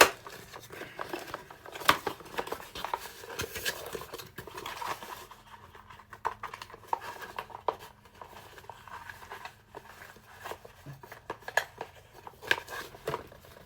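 Cardboard and plastic toy packaging being handled and picked at: irregular clicks, taps and rustles, busier in the first few seconds and sparser after.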